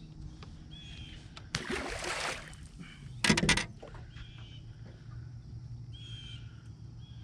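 Short bird calls repeating every couple of seconds over a steady low hum, with a rush of noise about a second and a half in and a brief, loud rattling knock about a second later.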